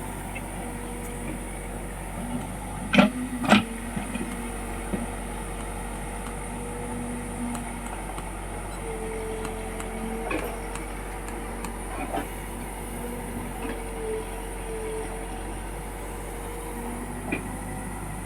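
Case backhoe loader's diesel engine running steadily under work, with two sharp metallic knocks about three seconds in and a few lighter knocks later.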